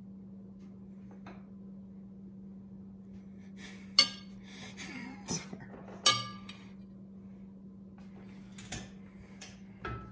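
Metal spoons and forks clinking against ceramic bowls as they are set down: two sharp ringing clinks about four and six seconds in, then a few lighter taps. A steady low hum runs underneath.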